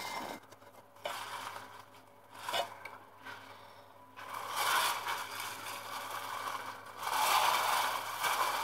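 Baking paper rustling and scraping as food is handled in a parchment-lined pan. It comes in short bouts at first, then in two longer stretches in the second half.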